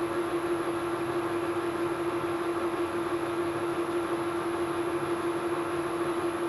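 1972 Weiler Matador SV metal lathe running steadily under power with a constant whine, the carriage travelling on a practice threading pass for an M18x1.5 thread.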